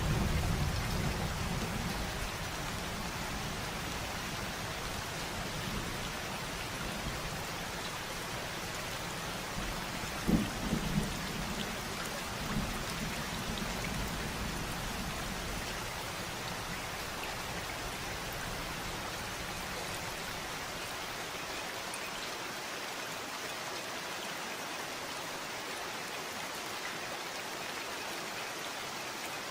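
Steady rain falling, with a low rumble of thunder dying away near the start. About ten seconds in come a few short, low thuds.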